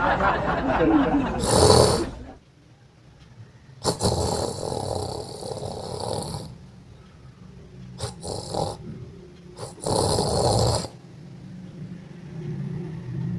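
Loud, harsh, exaggerated fake snoring from a man pretending to sleep: one long snore about four seconds in, two short snorts around eight seconds, and another long snore near ten seconds.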